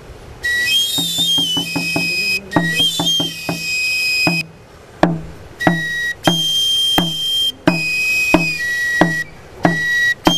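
Andean pipe and tabor: a high-pitched one-handed flute (pinkullo) playing a stepping melody while the same player beats a small drum (tinya), first in a quick run of strokes and then about twice a second. The playing stops briefly a little before the middle and starts again.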